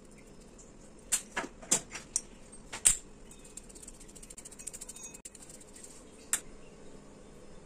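Sharp clicks and taps of a plastic spice shaker and a metal spatula against a frying pan as seasoning is shaken over pasta. Most of the clicks fall between one and three seconds in, followed by faint quick rattling and one more click near the end.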